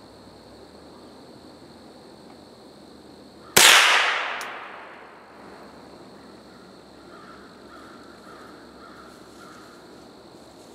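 A single loud gunshot about three and a half seconds in, its report dying away over about a second and a half, with a short click just under a second after it.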